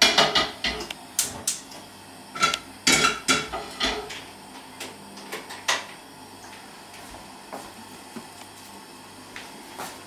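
Frying pan and metal kitchenware clattering on a gas hob: a run of irregular knocks and clanks with a short metallic ring, densest in the first few seconds, then only a few scattered taps.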